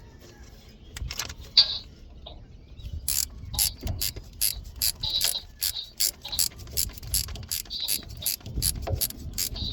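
Hand ratchet wrench clicking as a starter mounting bolt is backed out, a few separate clicks at first, then a steady run of sharp clicks from about three seconds in.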